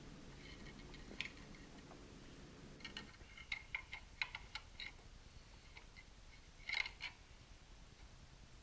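Faint light clicks and taps from handling small plastic parts as a lithium-ion battery pack is pressed into a remote control's plastic casing. A faint low hum stops about three seconds in.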